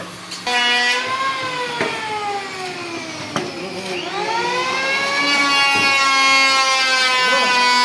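Power tool motor running with a high whine that starts about half a second in, sags slowly in pitch for a few seconds, then rises quickly back up about four seconds in and holds steady.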